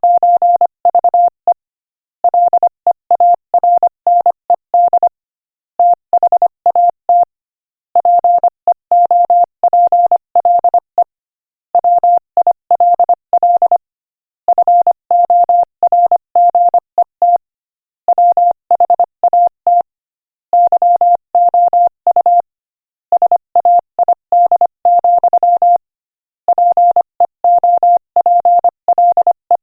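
Morse code sent at 25 words per minute: a single mid-pitched tone keyed on and off in quick dots and dashes, grouped into words with short pauses between them.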